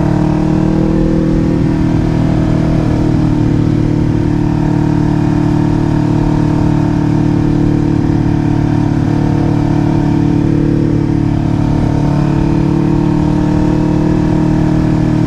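Kawasaki Ninja 500's parallel-twin engine running at a steady speed while riding, its note holding level without revving up or down, under a low wind rumble on the helmet microphone.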